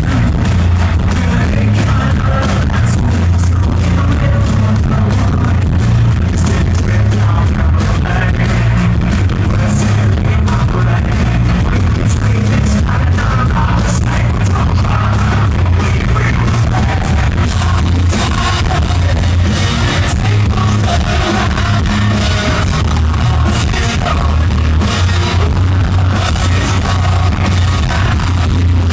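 Live hard rock band playing loud: distorted electric guitar, bass guitar and a drum kit, with a male lead singer singing into a microphone. Heard from within the audience, the mix is dense and heavy in the bass with a steady driving beat.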